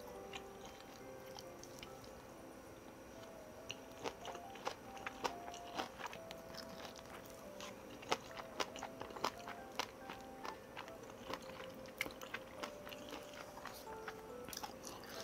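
Close-up eating sounds of someone eating spicy tteokbokki: chewing and biting, with many sharp clicks scattered through, over soft background music with a gentle single-note melody.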